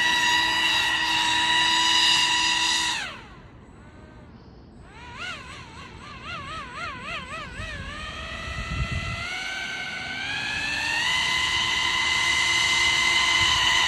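Pro Boat AeroTrooper 25-inch RC airboat's brushless electric motor and fan propeller whining at full throttle. About three seconds in the whine drops away, then wavers up and down in pitch for a few seconds with the throttle before climbing back to a steady high whine.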